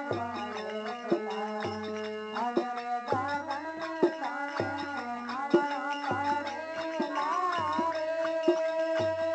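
Instrumental passage of a Marwari devotional song: a melody held on a steady line over a hand-drum beat, with a deep bass note about once a second.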